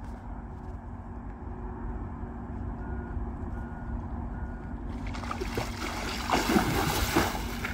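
A big carp thrashing at the surface as it is drawn into a landing net, throwing up water. Splashing starts about five seconds in and is loudest near the end, over a low steady rumble.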